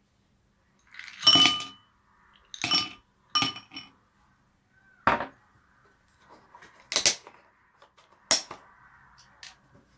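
Glassware clinking: a series of about six sharp, ringing clinks spread over several seconds, with quieter handling sounds between them.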